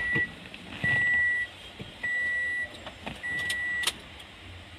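Car's in-cabin warning chime beeping, four evenly spaced high beeps about a second apart, each about half a second long, with a few light clicks between them.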